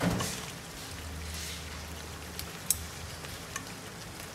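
Crabs in a thickened tamarind sauce simmering and sizzling in a frying pan: a steady crackle with a few sharp pops, one standing out about two and a half seconds in. There is a knock right at the start.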